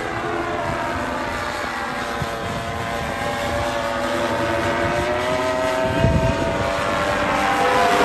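Paramotor engine and propeller running steadily, its pitch sagging over the first few seconds and then climbing again toward the end as it grows a little louder.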